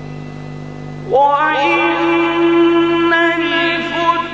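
A man's voice chanting Quran recitation in the melodic, drawn-out style, coming in about a second in and holding a long ornamented note with trills, heard through a microphone. Before it starts, a steady background hum.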